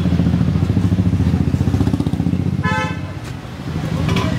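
Motorcycle engine running close by with a fast, even low throb, and a short vehicle horn toot about two and a half seconds in.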